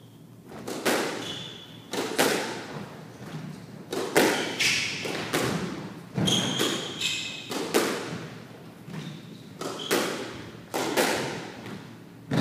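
Squash rally: the ball cracking off rackets and the court walls in quick succession, about one or two sharp knocks a second, each echoing around the court. Short squeaks, typical of court shoes on a wooden floor, come in between the hits.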